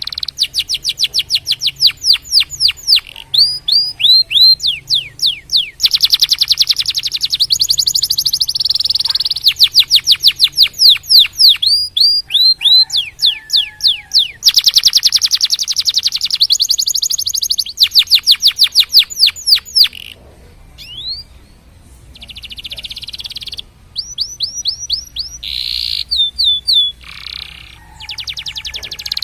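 Domestic canary singing a long song of fast trills, each a rapid run of repeated downward-sweeping notes, with a short break about two-thirds of the way through.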